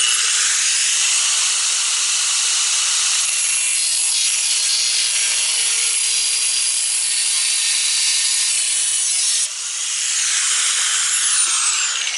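Corded angle grinder cutting through the stamped-steel core support bar: a loud, steady, high-pitched grinding. The level drops about nine and a half seconds in, and near the end the disc's whine falls in pitch as it spins down.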